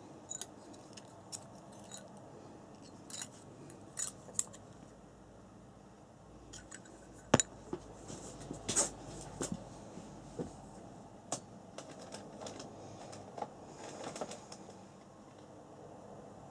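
Hands handling small RC car parts and tools: scattered small clicks and taps, the sharpest about seven seconds in, with a brief scrape about a second later.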